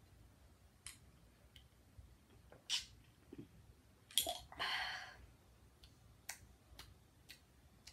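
A person drinking from a bottle of Ramune soda: faint scattered clicks from handling the bottle and a brief breathy rush after the sip, about halfway through.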